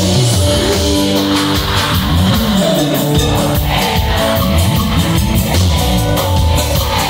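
Loud live band music played through a stage sound system, with a male singer's voice over it at times.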